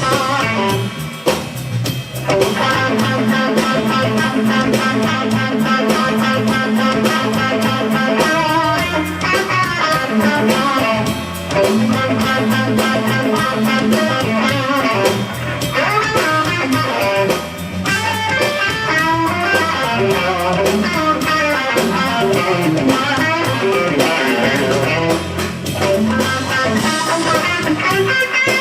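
Live electric blues band: an electric guitar plays lead over bass guitar and a drum kit, with no singing.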